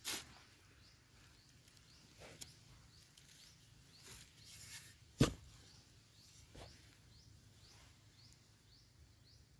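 Hand digging spade striking and scooping loose sandy soil, a few sharp knocks with the loudest a little past the middle, while a wild yam tuber is dug out. Faint short chirps repeat about twice a second in the background.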